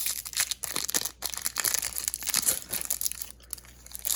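Foil Pokémon booster pack wrapper crinkling and tearing as it is opened by hand, in dense irregular crackles that die down about three and a half seconds in, with one last short crackle near the end.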